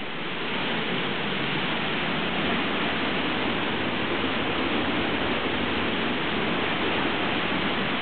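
Tunnel Falls, a tall waterfall on Eagle Creek, pouring down a rock face close by: a steady, unbroken rush of falling water.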